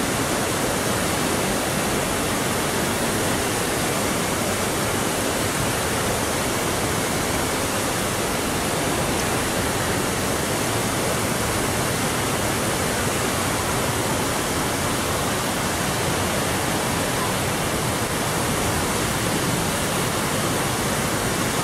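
Water rushing down the stepped concrete terraces of a large cascading fountain, a steady, even rush of falling and splashing water.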